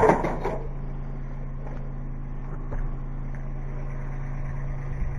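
Kubota B2320 tractor's three-cylinder diesel engine running steadily with an even low hum, after a brief noisy clatter in the first half second.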